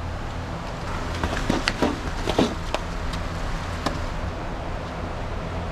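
A steady low engine-like hum with a scatter of sharp knocks and clicks, most of them in the first few seconds.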